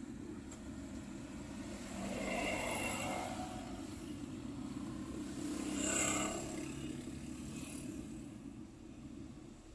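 Suzuki Alto driving on a road, heard from inside the cabin: steady engine and tyre noise. Passing traffic swells louder twice, around two to three seconds in and more sharply about six seconds in.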